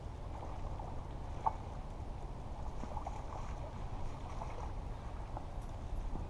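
Wind buffeting the microphone in a steady low rumble, with faint scattered small ticks and one sharper tick about a second and a half in.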